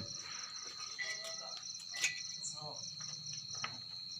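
Crickets chirping steadily in the background, a rapid even pulsing trill over a constant high tone, with a few faint clicks.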